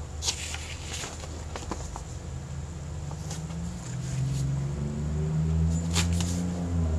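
A paper booklet being handled: a few light clicks and taps as its pages are held and moved. Under it is a low droning hum that swells about four seconds in, slowly rising and then falling in pitch.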